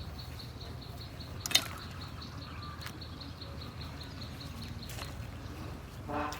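Insect chirping in a steady, high-pitched pulse of about six or seven beats a second over low background rumble, with one sharp click about a second and a half in and a short pitched call near the end.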